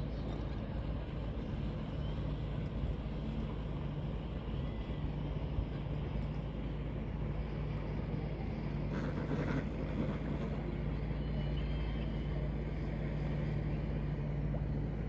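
A boat engine running steadily as a constant low hum, with the wash of water beneath it.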